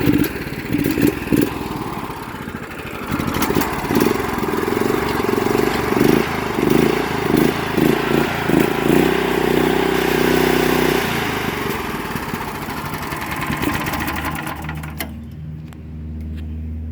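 Harbor Freight mud motor's small gas engine running after repair of its ignition, blipped up and down in a quick series of revs, then settling to a steadier speed. About a second before the end the sound drops sharply, leaving only a low steady hum.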